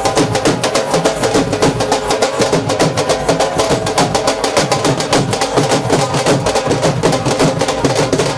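Rajasthani folk dance music: several dhol drums beaten fast and steadily with sticks, with a sustained melody line playing over the drumming.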